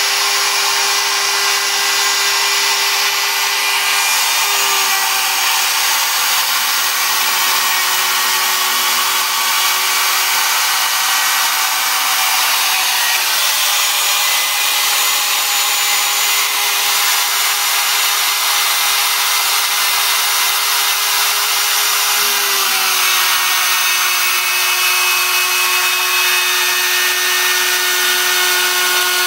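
CNC router spindle running steadily while its bit cuts a speaker hole in a studio-monitor baffle. It makes a constant whine over a dense cutting noise, and the pitch dips slightly twice as the cut loads it.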